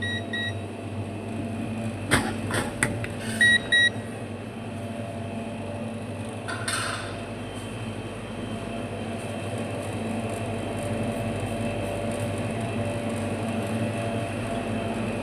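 Refrigerator compressor running under test after a refrigerant recharge, with a steady low hum. Short paired electronic beeps sound near the start and again about three and a half seconds in, with a few sharp clicks about two seconds in and a brief hiss near the middle.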